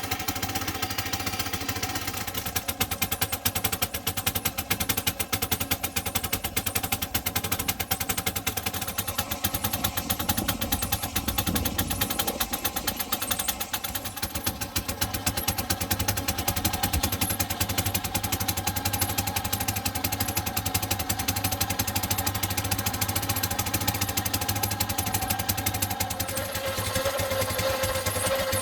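Miniature steam engine running fast, driving a model sawmill: a rapid, even rattle of exhaust beats with a steady whine that drops in pitch near the end.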